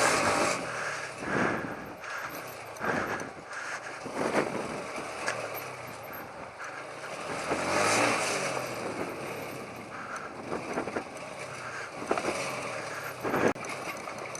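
TVS Apache RTR 180 motorcycle's single-cylinder engine running while riding over a rough dirt trail. Wind and road noise swell and fall, and there are several sharp knocks.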